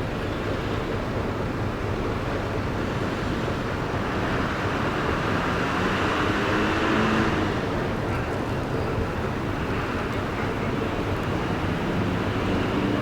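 Bus engines and traffic noise, running steadily and swelling louder about halfway through.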